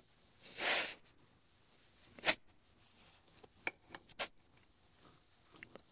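A short hiss of air as a tire pressure gauge's chuck is pressed onto a compact tractor's front tire valve stem, then a second sharp, brief hiss a little over a second later, followed by a few light clicks as the gauge is handled.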